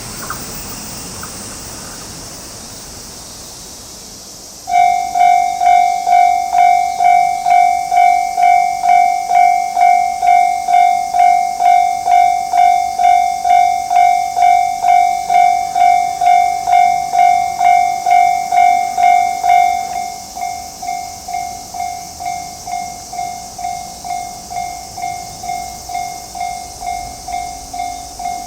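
Japanese level crossing warning bell starting up about five seconds in, an electronic 'kan-kan' ding repeating about twice a second. About two-thirds of the way through, the bell drops to a noticeably lower volume and keeps ringing.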